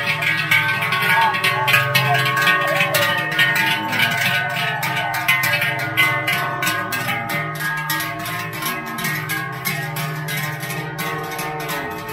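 Large cowbells hung from the necks of walking cows, clanging over and over as the cows step. Many ringing tones overlap, and the whole grows a little fainter in the second half.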